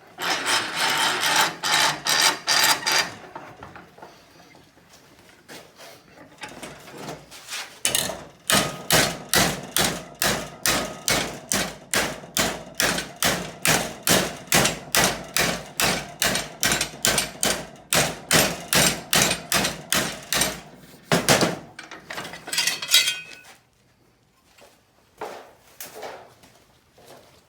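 Hammer blows on sheet metal, bending a panel's flange over a buck past 90 degrees: a fast flurry of blows, a pause, then a long run of steady blows about three a second, and a few scattered taps near the end.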